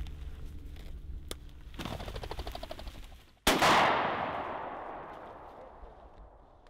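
A single shotgun blast about three and a half seconds in, its report echoing and dying away over the next few seconds.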